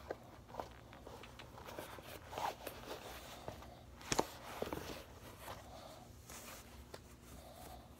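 Worn Adidas Gazelle suede sneakers being handled on the foot: a bare foot rubbing and slipping in the shoe, and the gum soles scuffing and tapping a hard floor, in scattered small rustles and clicks. A sharper knock comes about four seconds in.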